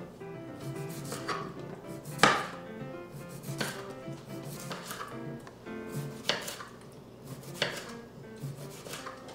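Kitchen knife slicing a cucumber into rounds on a wooden cutting board: about seven sharp chops, roughly one every second or so, the loudest about two seconds in. Soft background music runs underneath.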